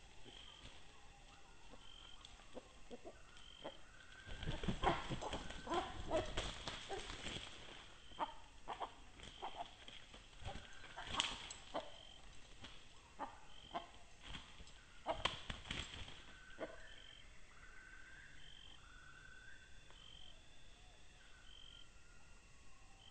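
Red junglefowl moving through dry leaf litter: bursts of rustling and crackling, loudest a few seconds in and again twice later. Short high chirps repeat about every second and a half in the background.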